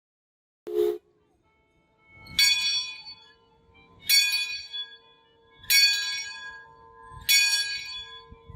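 A riverboat's bell struck four times, evenly about a second and a half apart, each stroke ringing on. A brief low burst comes just before the strokes, about a second in.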